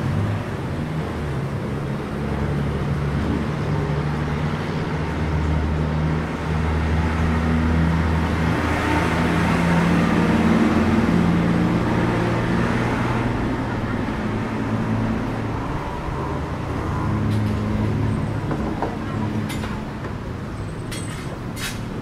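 Street traffic, with a bus engine's steady low rumble over the wash of other passing vehicles, swelling loudest about ten seconds in. A few sharp clicks near the end.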